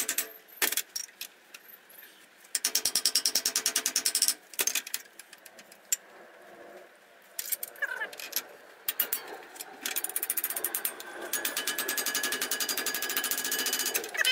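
Hand file rasping on the edge of a steel bracket clamped in a bench vise, squaring it up after bending. It comes in quick, evenly repeated strokes: a spell about three seconds in and a longer one from about ten seconds on.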